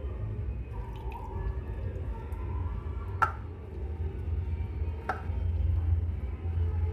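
Hand squishing and kneading chopped banana flower with flour and spices in a steel bowl, with two sharp clicks about three and five seconds in, over a steady low hum.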